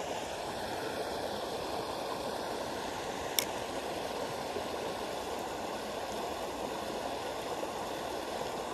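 Creek water running steadily through a shallow ford, with one sharp click about a third of the way in.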